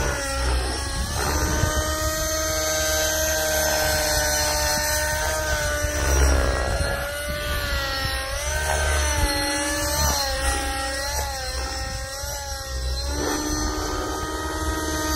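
T-REX 600N nitro RC helicopter in flight: its O.S. .55 glow engine with tuned pipe and its rotors make a steady, high buzzing whine. The pitch rises and falls over and over as the helicopter manoeuvres.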